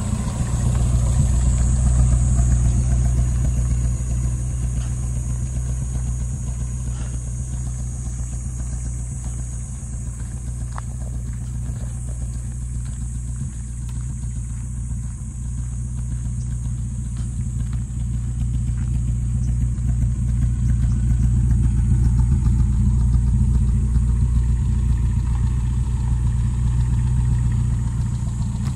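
Vehicle engine running at low speed: a steady low hum that swells a little about two seconds in and again later, with a steady high hiss above it.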